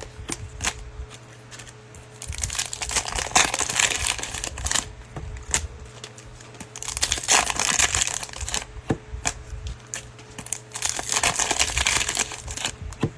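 Plastic trading card pack wrappers crinkling in bouts as sealed packs are handled and picked up, with light clicks of cards and packs being set down.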